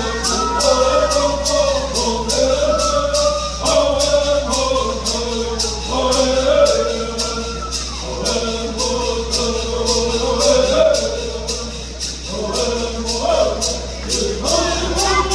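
A group of men singing Bird songs in unison, with gourd rattles shaken in a steady beat, about two to three strokes a second.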